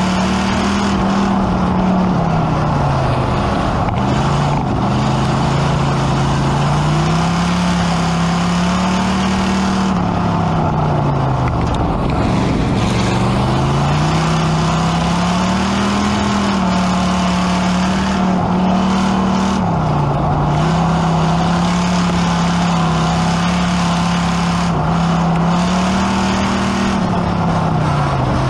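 Pure Stock dirt-track race car's engine heard from inside the cockpit under racing load, its pitch climbing as it accelerates and dropping each time the driver lifts, several times over, over a constant din of wind and chassis noise.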